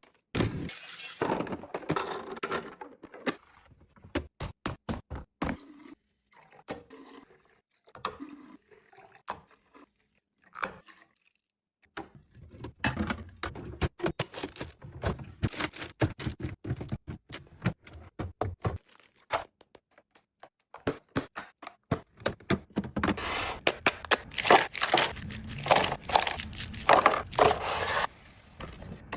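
Fridge restocking: containers, bottles and packages being set down, slid into place and handled, with many knocks, scrapes and rustles broken by brief pauses.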